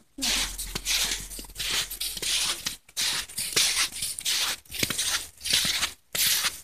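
Footsteps crunching through deep fresh snow, a steady walking rhythm of roughly ten steps, about one and a half a second.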